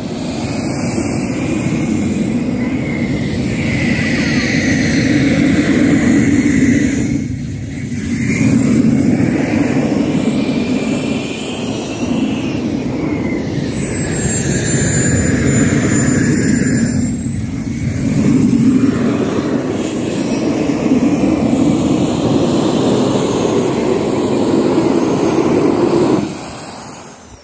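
Small homemade turbine jet engine running with its afterburner lit: a loud steady jet noise with a high turbine whine that drifts lower and back up in the middle, the level dipping briefly a couple of times.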